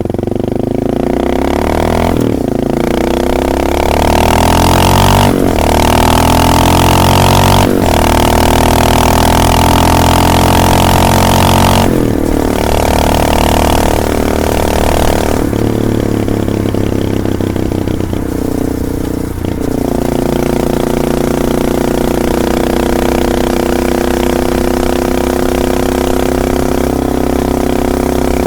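Honda XR650L's single-cylinder four-stroke engine through a DG slip-on exhaust, pulling away and accelerating. Its note rises through the gears with a brief dip at each of several shifts, then settles into a steady cruise about two-thirds of the way in.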